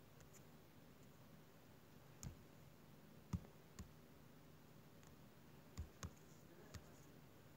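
Faint, irregular taps on a tablet touchscreen, about six in all and the loudest a little under halfway in, over a faint steady low hum.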